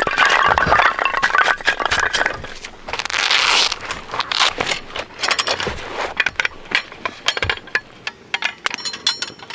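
A stainless-steel wire grill grate being handled in gloved hands, its bars clinking and scraping, with a short metallic ring near the end. Irregular cracks and pops of a burning wood fire run underneath.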